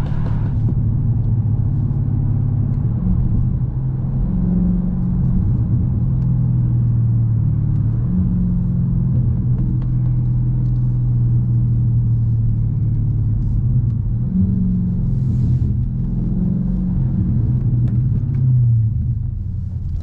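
Car engine running at low revs, a steady low rumble whose pitch steps up and down slightly as the car creeps in traffic.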